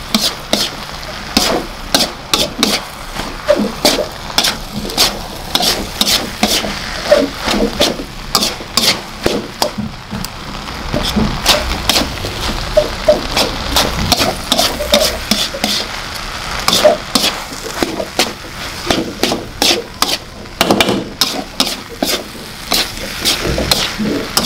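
Metal spatula stirring and tossing fried rice in a wok: repeated sharp clinks and scrapes of metal on the pan, a couple a second and irregular, over a steady sizzle of the frying rice.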